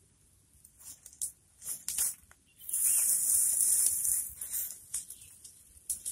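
Dry bamboo leaves and straw crackling and rustling as a hand works through the litter pile. A few short crackles come first, then a longer, denser rustle of about a second and a half in the middle, and a couple of crackles near the end.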